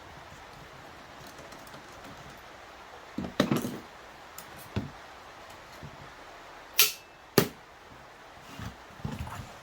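Tools and metal parts clicking and knocking while the seatbelt pretensioner is taken apart, with two loud sharp clicks a little over halfway through and a short rattle near the end, over a steady hiss.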